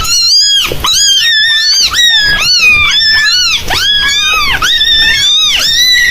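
A young animal crying out in a rapid run of high-pitched squeals, about two a second, each rising and then falling in pitch.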